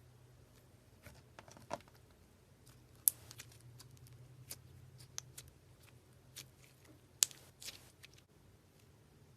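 Slime being handled close to the microphone: scattered small crackles and pops, with two sharp clicks, one about three seconds in and one about seven seconds in.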